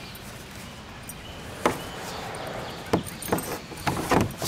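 Large moulded plastic playset roof panels being handled and set against each other, giving a few sharp hollow knocks and bumps, with a quicker cluster of knocks near the end.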